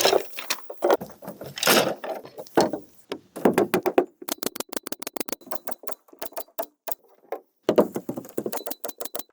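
Clattering knocks and rattles of handled hard objects, then two quick runs of sharp clicks, about six to eight a second.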